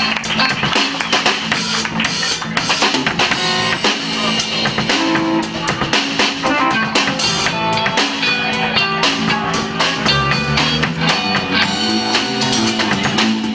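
Live rock band playing an instrumental passage: two electric guitars over a drum kit keeping a steady beat.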